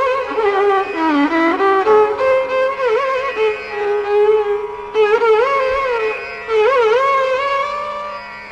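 Carnatic music in raga Shubhapantuvarali: a single melody line in phrases, with heavy oscillating gamaka ornaments, over a steady drone.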